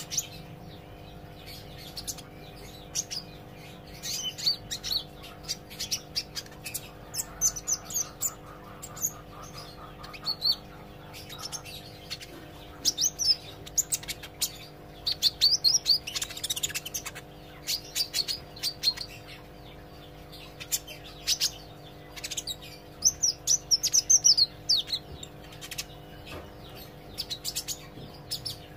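Young green sunbird practising its song: scattered bursts of thin, high chirps and quick twittering notes, busiest around the middle and again near the end, over a steady low hum.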